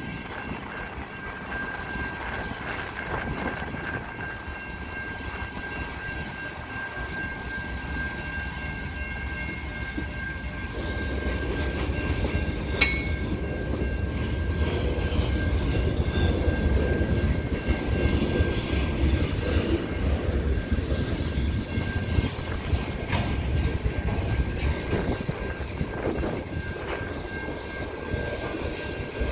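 Freight cars of a slow-moving mixed freight train rolling past a level crossing. The wheels rumble and clack over the rails, growing louder about a third of the way in, with one sharp clank about halfway. A steady high tone, the crossing signal's bell, sounds alongside.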